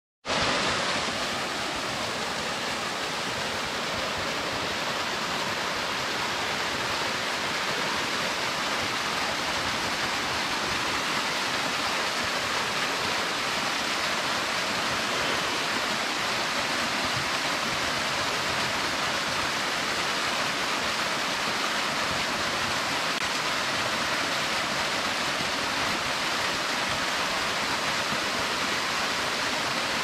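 Small waterfall: a narrow ribbon of water falling down a mossy bank and splashing onto the rocks below, a steady hiss.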